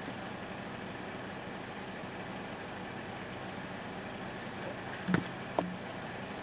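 Chainsaw running steadily at idle between cuts. Two short sharp knocks come about five seconds in.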